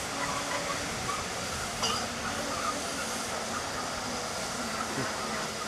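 GNR N2 class 0-6-2 tank steam locomotive working its train of coaches, a steady running sound with a single sharp click about two seconds in.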